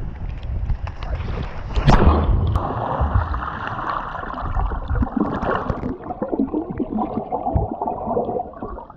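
Wind on the action camera's microphone, then about two seconds in a loud splash as the camera goes under water. Muffled underwater bubbling and churning from a swimmer's strokes follow.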